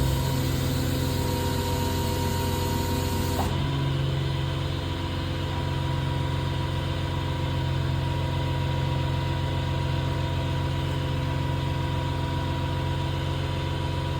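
Engine idling steadily at an even pitch. A higher hiss over it stops abruptly about three and a half seconds in.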